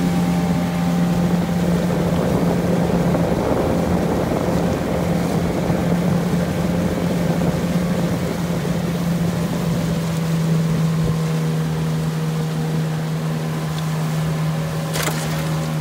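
Tohatsu outboard motor running steadily at a cruising pace, pushing a small aluminium punt upriver, with water rushing along the hull. A single sharp click near the end.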